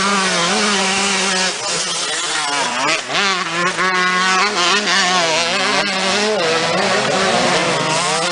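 Several motocross bikes racing, their engines revving up and down over one another as they work around the track.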